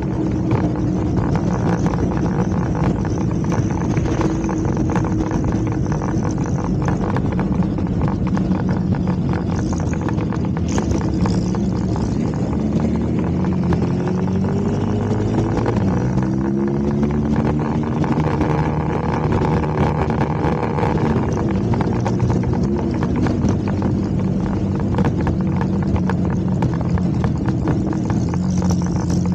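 Motorcycle engine running steadily under way, its pitch sweeping down and back up about halfway through as the speed changes.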